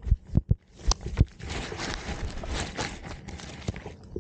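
A dog's muzzle knocking against the camera several times in quick succession, then a couple of seconds of close sniffing and rubbing noise right at the microphone.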